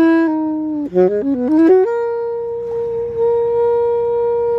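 Alto saxophone played solo: a held note that sags slightly, then a quick rising run of short notes about a second in, landing on one long note held steadily.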